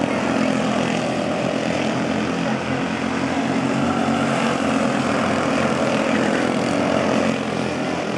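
Several quarter midget race cars at racing speed, their small Honda engines buzzing together in a steady drone.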